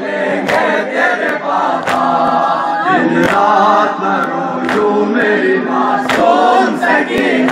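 A group of men singing a noha (Shia lament) together in chorus, with sharp slaps about once a second from hands beating on chests (matam).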